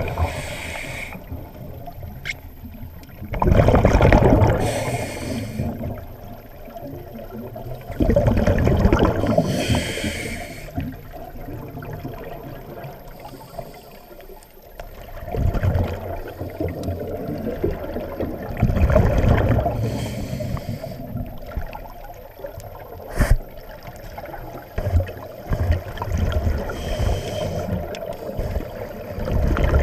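Scuba diver breathing underwater through a regulator: a bubbling rush of exhaled air about every four to five seconds, with quieter gurgling between breaths. A single sharp click comes about three quarters of the way in.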